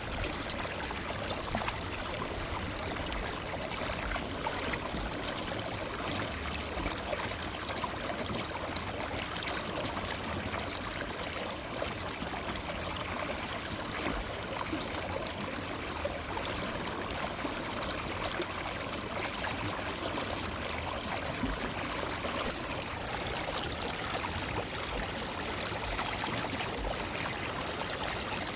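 Forest river flowing steadily, water rushing and trickling over rocks.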